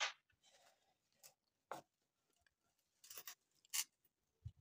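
Flat-blade screwdriver prying up the crimped clip tabs on a radiator's metal header: a few short, irregular scrapes and clicks as the tabs are levered open to free the plastic tank.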